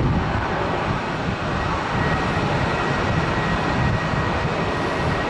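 Airbus A319 airliner's jet engines rumbling steadily as it touches down and rolls out on the runway. A faint high whine joins about two seconds in.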